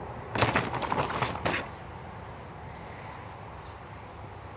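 Rustling and clicking of snuff tins and packets being handled and sorted, lasting just over a second near the start, then a low steady background with a few faint high chirps.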